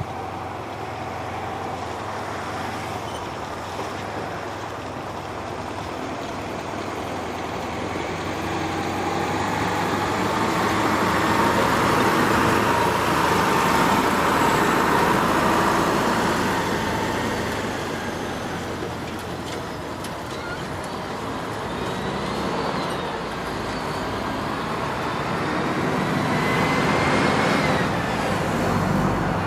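Twin Pratt & Whitney Canada PW545C turbofans of a Cessna Citation XLS+ business jet on approach: a steady jet roar with an engine whine that swells to its loudest about halfway through and then eases. Higher whining tones rise near the end.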